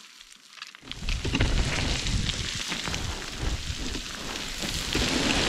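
Boots crunching and sliding on loose rock scree while climbing down a steep slope, starting about a second in, over a low rumble of wind on the microphone.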